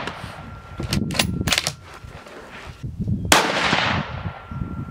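A single .223 rifle shot from a CZ 600 Trail bolt-action rifle about three seconds in, ringing out and fading slowly, after a quick run of sharp metallic clicks about a second in as the bolt is cycled. Wind buffets the microphone underneath.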